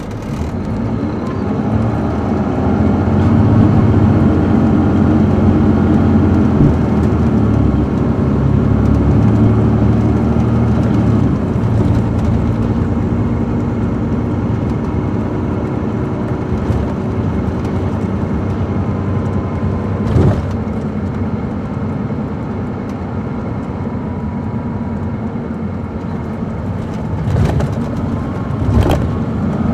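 A Caterpillar C13 ACERT diesel in an MCI D4500CL coach, heard from inside the cabin, rising in pitch and loudness as the bus accelerates over the first few seconds, then running steadily at speed. A few short knocks come near the end.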